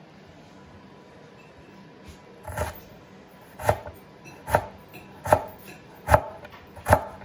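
Chef's knife cutting through a stack of daikon slices into matchsticks and striking a wooden cutting board: six even chops a little under a second apart, starting about two and a half seconds in.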